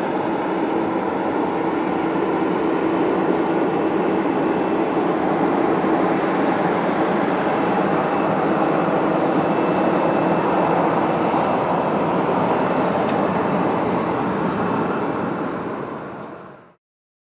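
Boeing 737-800's CFM56 turbofan jet engines running steadily as the airliner rolls along the runway: a loud, even rush with a faint steady hum in it, fading out about sixteen seconds in.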